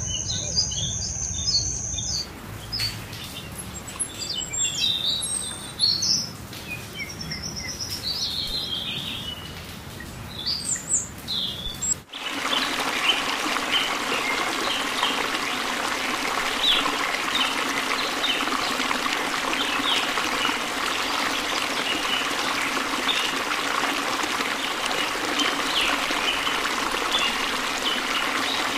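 Birds chirping and calling, with a steady high tone in the first two seconds. About twelve seconds in it cuts to a small fountain birdbath trickling and splashing steadily, with many short high hummingbird chirps over it.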